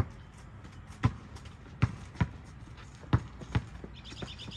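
A basketball bouncing on an asphalt court, with about six sharp thuds at an uneven pace.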